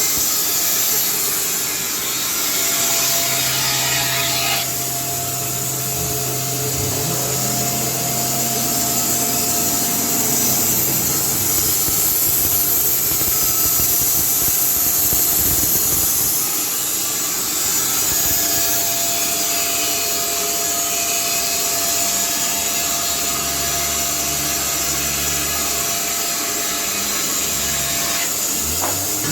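Carpathian SMFA 100 automatic band sawmill running and sawing through a log, a steady blade-in-wood hiss over the motor's hum. The hiss thins out about four to five seconds in.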